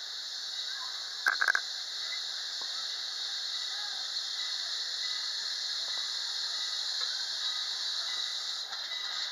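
Steady hiss from the Strasburg Rail Road No. 89 steam locomotive as it backs slowly toward its coaches, with a brief sharp metallic squeal and clank about a second and a half in.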